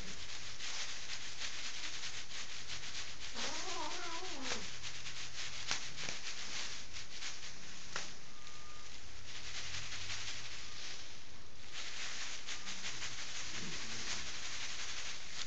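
Angry cat yowling: one long yowl rising then falling about three seconds in, and a shorter one near the end. Between them the plastic sheeting the cat stands on crackles and rustles.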